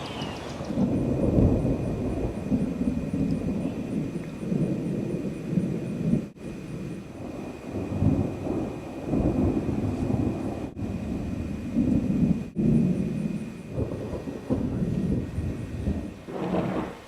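Rolling thunder: a long, low rumble that swells and fades in waves without stopping.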